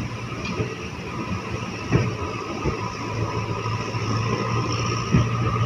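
Passenger train rolling slowly, heard from a coach window: a few irregular wheel clacks over rail joints over a steady low hum that grows louder toward the end.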